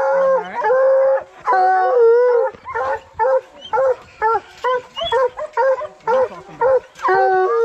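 Two penned coonhounds bawling and barking. Long drawn-out hound bawls come first, then a run of short chop barks about twice a second, with a longer bawl near the end.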